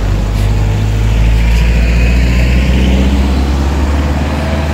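A motor vehicle driving past close by on the road: a low engine hum with tyre hiss that swells to its loudest a second or two in, then eases off.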